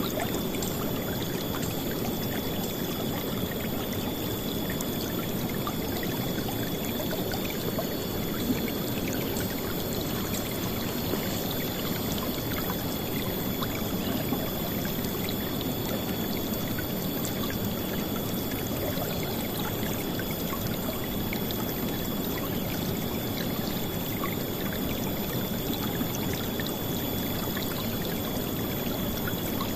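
A river flowing and splashing in a steady, full rush of water, with a thin steady high tone above it.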